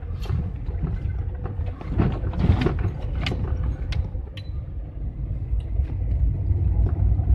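GAZelle camper van driving over a rough, broken road, heard from inside the cab: a low rumble of engine and tyres, with scattered knocks and rattles as it jolts over the bad surface. The loudest jolts come about two to three seconds in.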